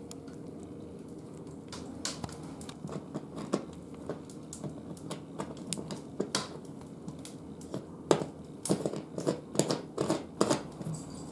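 Irregular clicks and light metal taps from a hand nut driver turning the nut on a chandelier's ceiling mounting strap, coming faster and louder over the last few seconds, over a low steady hum.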